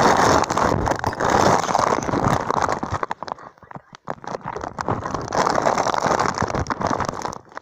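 Handling noise from a phone held against clothing: fabric rubbing and scraping over the microphone, with many sharp clicks. It eases off about three seconds in and comes back loud about two seconds later.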